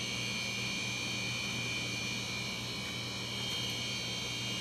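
Steady electrical hum with a faint high-pitched whine above it, unchanging throughout.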